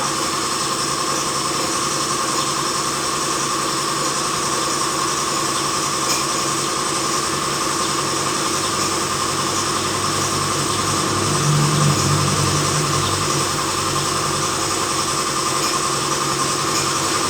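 A motor running steadily with a high whine, starting abruptly just before and holding an even pitch throughout, with its low hum swelling briefly about twelve seconds in.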